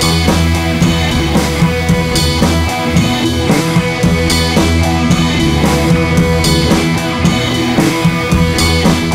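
Rock music with drums, bass and guitar, playing with a steady beat.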